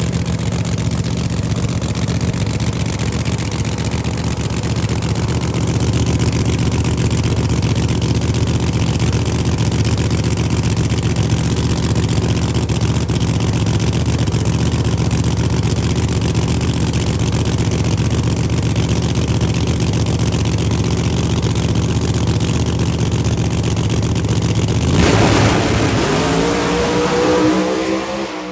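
Drag racing car's V8 engine idling steadily at the starting line, then about 25 seconds in it goes to full throttle on launch, pitch rising quickly as it accelerates away, fading toward the end.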